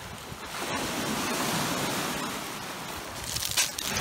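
Lake Superior surf washing on a pebble beach, a steady rushing noise mixed with wind buffeting the microphone.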